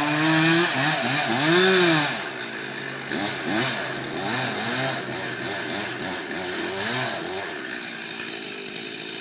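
Chainsaw engine running at high revs, rising and falling in pitch. About two seconds in it drops back and is revved up and down over and over, then settles near the end.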